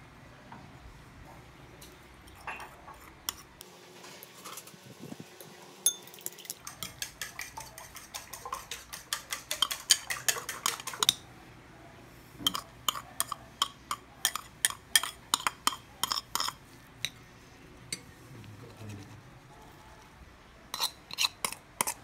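Metal spoon tapping and scraping against a ceramic bowl and a glass mixing bowl, in several runs of quick clinks.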